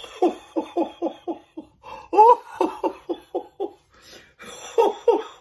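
A man laughing out loud in three runs of quick, rhythmic "ha-ha" bursts, about five a second, the loudest run starting about two seconds in.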